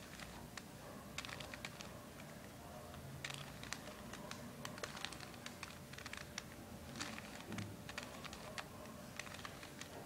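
Layers of a stickerless plastic 3x3 Rubik's Cube being turned by hand: quick, irregular clicking in short runs of several clicks.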